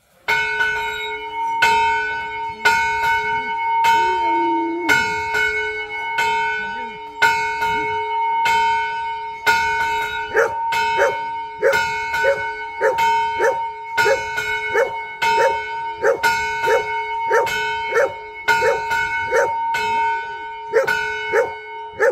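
A metal toaca (iron semantron) struck over and over with small metal hammers, each blow ringing on in several clear tones. The strokes are slow and uneven at first and quicken about ten seconds in into a fast rhythm of about two to three strokes a second. A dog gives a brief low cry about four seconds in.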